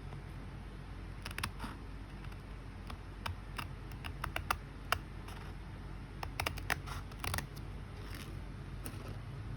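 Scattered small clicks and taps from handling tools and small parts at a workbench, in clusters about a second in, around four to five seconds in and again around six to seven seconds, over a steady low hum.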